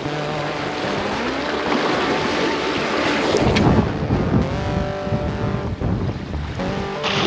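Sea surf washing against shoreline rocks, with wind buffeting the microphone. Faint sliding tones run underneath.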